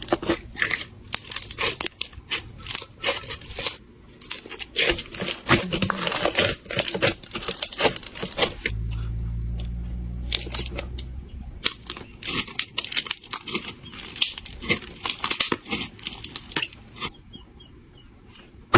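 Crunchy textured slime being squeezed and pressed by hand, giving dense crackling and crunching with sharp pops. A low hum comes in for a few seconds about nine seconds in.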